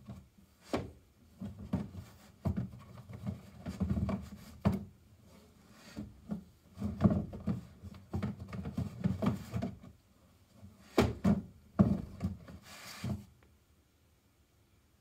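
Cat shoving and dragging a storage box around on a wooden shelf: an irregular run of knocks, thumps and scraping, the sharpest knocks a little after the middle, stopping near the end.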